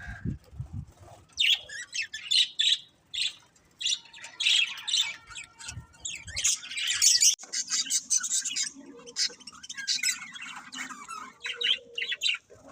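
Budgerigars chirping and squawking: a busy, irregular run of short, high calls from several birds at once.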